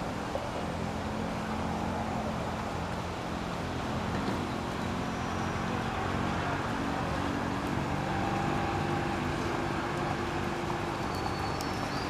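A steady low mechanical hum over a constant background rush, like an engine running at a distance, its pitch shifting slightly about a third of the way through.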